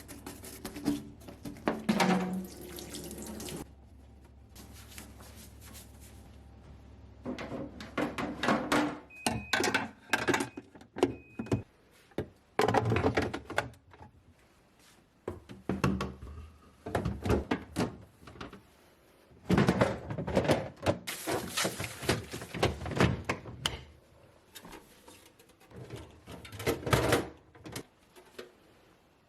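A kitchen tap running on and off into a sink, with thunks and clatter of items being handled and washed.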